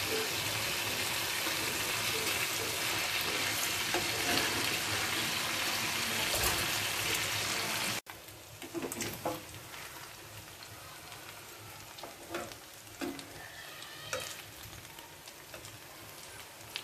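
Chicken pieces sizzling in a granite-coated roasting pan while metal tongs turn them. About eight seconds in, the sound cuts to a much quieter, fainter sizzle with scattered clicks and knocks.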